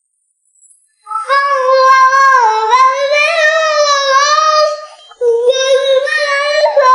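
A young girl's voice in two long, high-pitched, drawn-out vocal sounds with a wavering pitch: the first starts about a second in, and the second follows a brief break about five seconds in.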